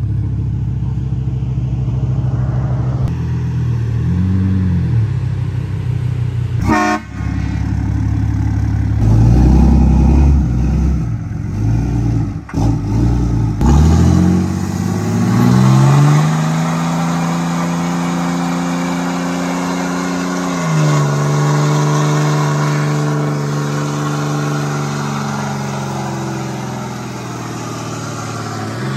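Lifted pickup truck revving in short blips, then held at high revs with its rear tyres spinning in a burnout: the engine pitch rises about halfway through and stays high and steady over a rushing tyre noise, with a small dip in pitch about two-thirds through.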